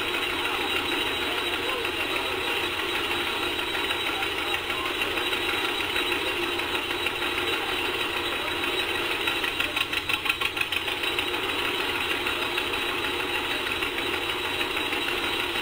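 The two-cylinder engine of a 1947 John Deere D ("Poppin' Johnny"), converted to LP, pops steadily while it drives a running threshing machine. The beat comes through more distinctly about ten seconds in, as the engine takes the load of bundles being fed in.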